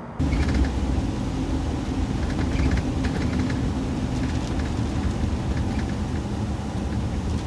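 Small shuttle bus driving, heard from inside the cabin: a steady low engine and road rumble.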